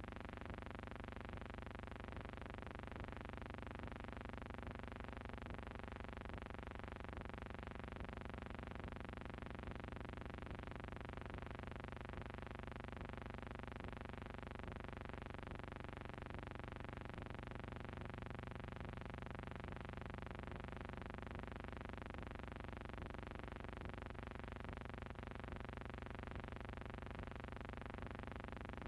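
Steady droning hum made of many held tones, unchanging in pitch and level throughout.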